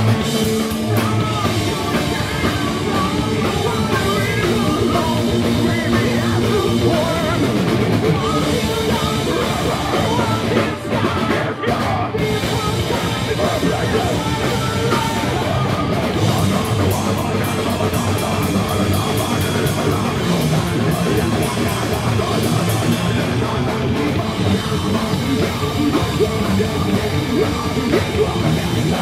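Live heavy metal band playing loudly: drum kit, distorted electric guitars and bass guitar, with a short drop-out about eleven seconds in.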